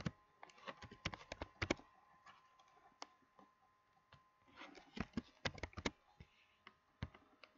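Computer keyboard keys clicking in two quick runs of typing, with scattered single keystrokes between them and one sharp click at the start.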